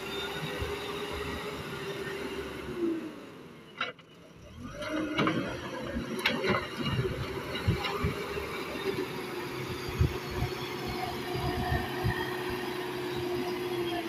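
JCB 3DX Super backhoe loader's 74 hp diesel engine running steadily as the machine works the front loader bucket through soil, with a run of knocks and clanks from about five to ten seconds in. The sound drops away briefly about four seconds in.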